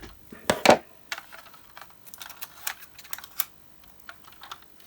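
Fingers picking at tape and handling plastic packaging: irregular small clicks and scratches, loudest about half a second in.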